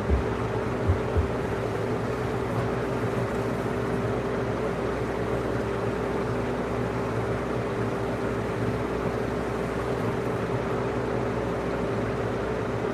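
Steady mechanical hum with a constant tone, unchanging throughout, with a few soft low thumps in the first second or so.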